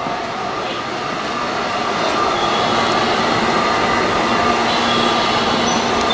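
JR West 521 series electric train at the platform: a steady rush of train noise, with a faint high whine coming in about two seconds in and a low hum joining near the end.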